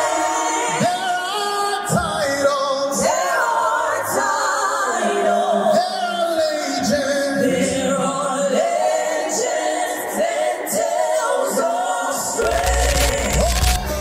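Gospel singing through a stage PA: a lead singer and a group of backing singers, with little accompaniment. Near the end a band with heavy bass and cymbals comes in.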